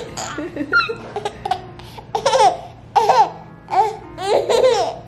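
Baby laughing in short high-pitched bursts, again and again.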